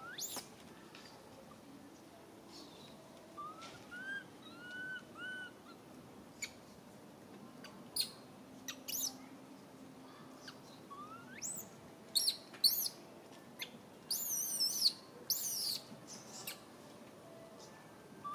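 Baby macaque giving a scattered series of short, high-pitched, chirp-like cries that rise in pitch, with a louder warbling cry about three-quarters of the way through: distress calls of an infant wanting its mother.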